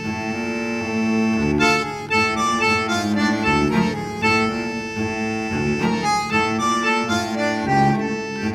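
Background music: an instrumental tune with a melody of changing notes over a steady held low note.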